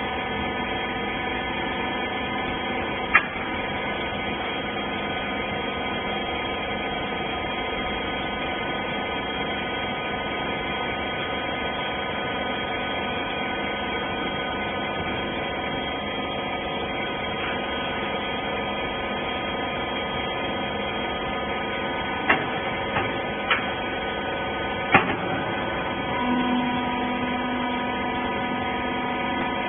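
Horizontal bagging baler running with a steady machine hum, with a few sharp clicks or knocks. A new steady tone joins near the end.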